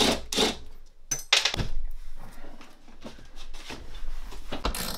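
Knocks and clatter of a flat-screen TV being handled and lifted off its metal wall-mount bracket: a few sharp knocks, the loudest about a second and a half in and another near the end, with quieter rubbing and scraping between.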